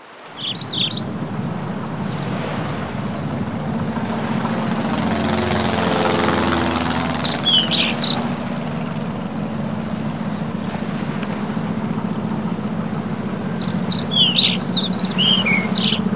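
Small birds chirping in three quick clusters of short, high notes, over a steady low drone that swells for a couple of seconds in the middle.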